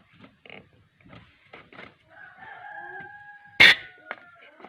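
A rooster crowing: one long call of about two and a half seconds, steady in pitch and dipping slightly at the end. A short, sharp noise cuts across it about three and a half seconds in, and a few light clicks come before the crow.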